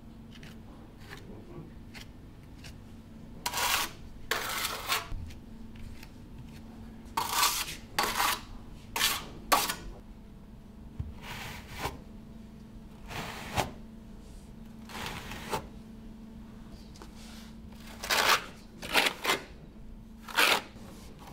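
Steel trowel scraping as it spreads adhesive and mortar over a concrete balcony slab: a series of short scrapes, one every second or two, over a faint steady hum.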